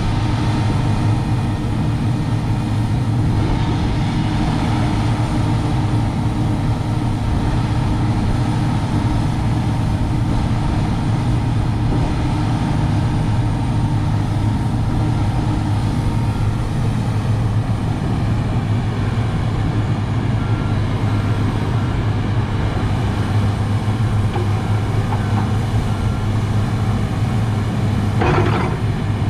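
Komatsu PC300-8M0 hydraulic excavator's diesel engine running steadily under load as the boom, arm and bucket are worked. A short burst of higher-pitched noise comes near the end.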